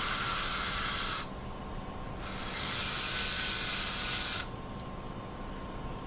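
Cordless drill boring a pilot hole through a small block of wood in two short runs: the first stops about a second in, the second starts about a second later and runs for roughly two seconds.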